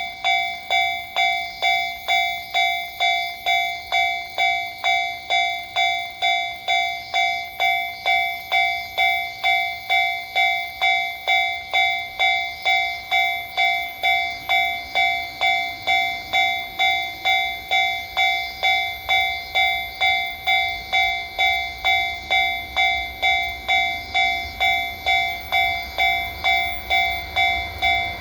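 Japanese level-crossing warning bell ringing at an even rhythm, just under two strikes a second: the alarm that a train is coming. Near the end the low rumble of the approaching freight train starts to rise under it.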